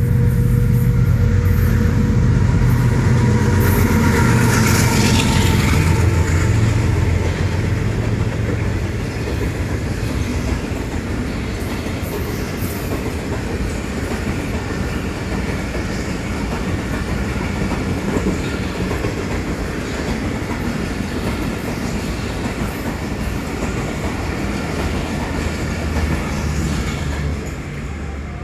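GE GEU-40 diesel-electric locomotive passing at speed, its engine loudest for the first six seconds. A long rake of passenger coaches then rolls by with a steady rushing noise and wheels clattering over rail joints, easing near the end as the last coach goes by.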